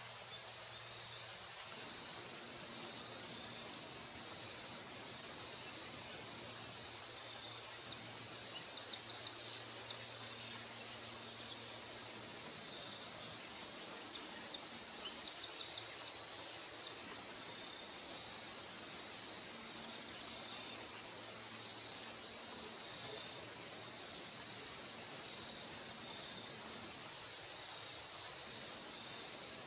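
Insects chirping in a steady high trill, with short runs of quicker chirps now and then, over a faint background hiss.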